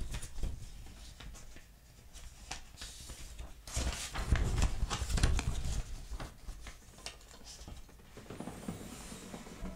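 Rustling and handling noise close to the microphone, with a cluster of knocks and thumps about four to five and a half seconds in; no playing or singing.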